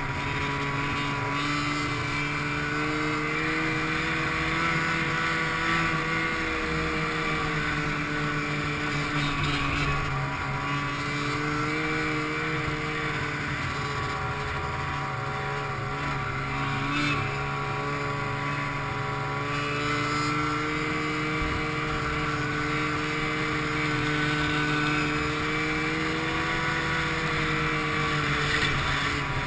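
Snowmobile engine running steadily while riding, its pitch drifting gently up and down with the throttle.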